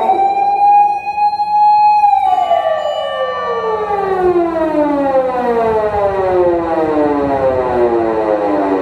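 Osaka Siren MK-10 electronic siren amplifier sounding a slow wail. The tone sweeps up, holds high for about two seconds, then falls slowly and steadily for the rest, like a motor siren winding down.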